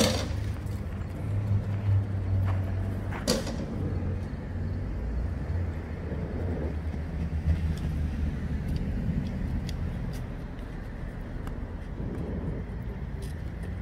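Steady low outdoor rumble, like distant traffic, with scattered faint clicks and one short louder rustle about three seconds in.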